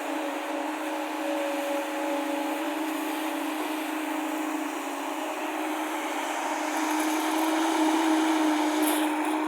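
Construction machine's diesel engine running steadily with a constant hum, growing somewhat louder about seven seconds in.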